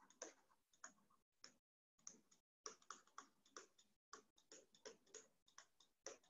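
Faint, irregular ticking of a stylus tapping and stroking across a tablet screen while handwriting, about fifteen light ticks.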